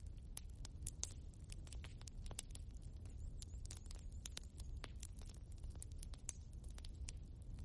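Wood fire burning in a fireplace: logs crackling and popping irregularly, many sharp pops a second over a steady low rumble of the flames.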